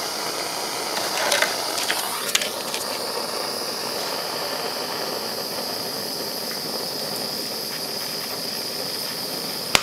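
Bernzomatic propane torch burning with a steady hiss. A few clicks come in the first couple of seconds, and one sharp click comes near the end.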